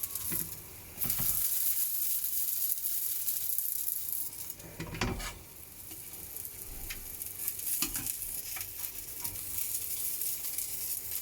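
A stuffed murtabak frying in oil and ghee on a hot pan, sizzling steadily as its sides are toasted crisp. There is a brief knock about five seconds in and another near eight seconds.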